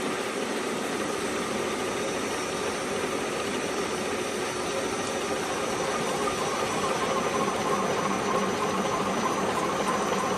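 Three-station CNC milling machine running, a steady mechanical noise with faint humming tones. About six seconds in it gets a little louder and a higher whine comes up, as a cut takes load.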